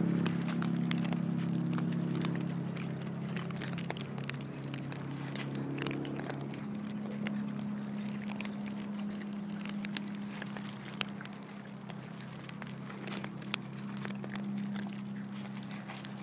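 Several cats crunching and munching their food close to the microphone: a continuous run of small sharp crunching clicks. A steady low hum runs underneath, loudest at the start.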